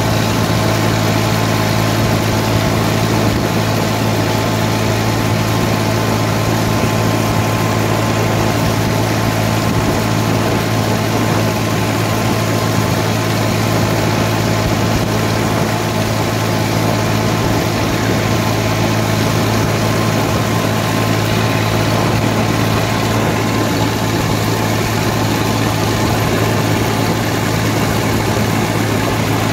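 Massey Ferguson 240 tractor's three-cylinder diesel engine running steadily as the tractor drives along at an even speed, heard close to its upright exhaust stack with a constant low drone.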